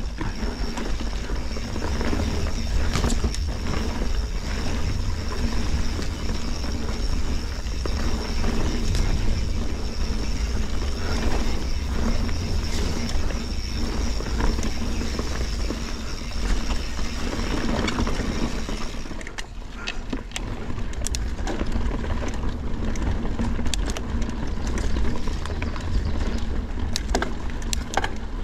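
Mountain bike ridden over damp singletrack with roots and rocks, with low wind and tyre rumble on the bike-mounted camera's microphone and many short rattles and knocks from the bike over the rough ground. A steady high buzz, the rear freehub ticking over while coasting, runs until about nineteen seconds in and then stops.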